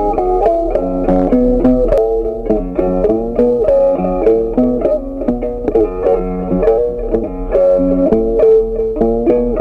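Background music: a plucked guitar melody, one note after another in a steady run.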